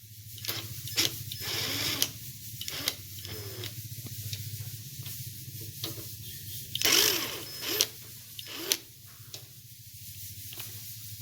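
Scattered clicks, taps and knocks of hand tools and small screws being handled while a mounting bracket is fitted to an amplifier rack, with a couple of louder clatters around seven and nine seconds in, over a steady low hum.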